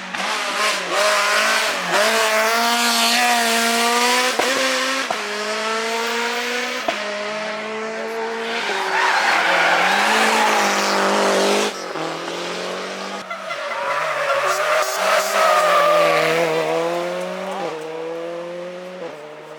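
Rally car engine revving hard, its pitch climbing and dropping back sharply at each gear change several times over, with the hiss and squeal of tyres sliding.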